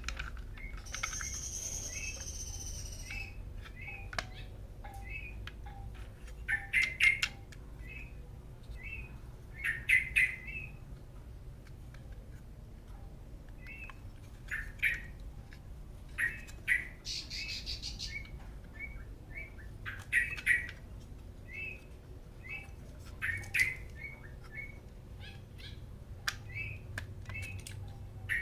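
Birds chirping and calling: short chirps repeating about every half second, with clusters of sharper calls and a couple of longer whistled notes, over a steady low hum.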